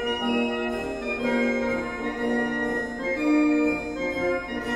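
Background music: a slow melody of held keyboard notes, changing every half second or so.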